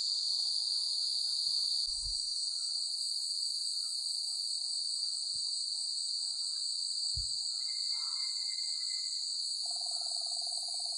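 Dense chorus of crickets and other forest insects: a steady shrill drone. A few dull low thumps come about two seconds in and again around five and seven seconds, and a lower pulsing trill joins near the end.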